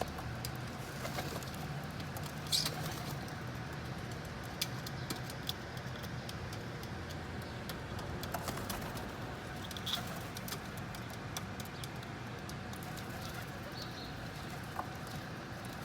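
Pigeons feeding on sunflower seeds: many scattered small clicks and taps from pecking, over a steady low hum.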